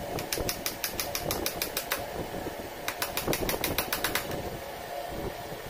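Small hammer tapping nails into a wooden lattice strip: two runs of quick, light, evenly spaced taps, about seven a second, with a pause of about a second between them.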